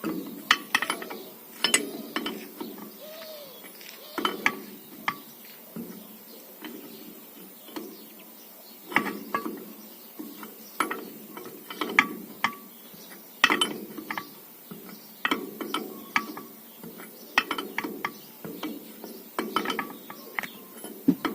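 Metal tools clicking, clinking and clunking in irregular clusters, a few sharp knocks every second or two, as work goes on at a tire and wheel.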